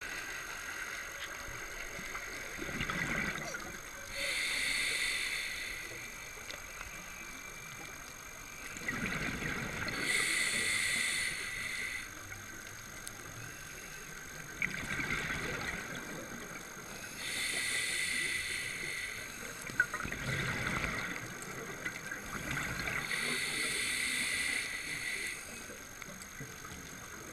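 Scuba regulator breathing heard underwater: a hissing inhale through the regulator about every six seconds, four times, each alternating with the bubbling gurgle of an exhale.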